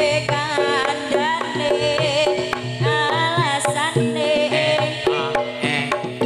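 Javanese jaranan music: a woman sings a melismatic line with vibrato over a gamelan-style ensemble. Kettle gongs struck with mallets ring out steady repeating notes, and a large barrel drum plays regular low strokes.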